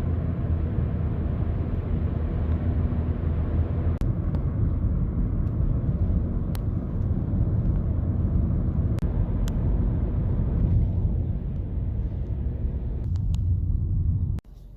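A car driving along a road: a steady low road-and-engine rumble, with a few faint ticks, cutting off abruptly near the end.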